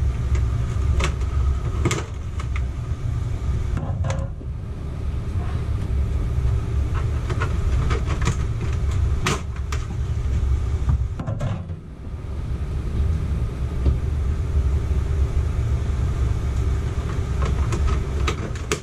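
Plastic ceiling shroud and return-air grille of a Coleman Mach rooftop air conditioner being pressed into place by hand: scattered plastic clicks and knocks over a steady low rumble.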